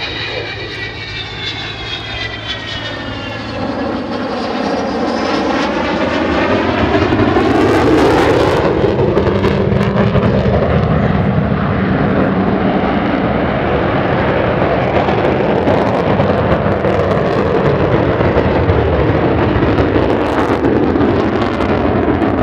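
Avro Vulcan's four Rolls-Royce Olympus turbojets during a display pass. A whining tone falls in pitch over the first few seconds, then the engine noise swells to a loud, steady jet roar from about seven seconds in.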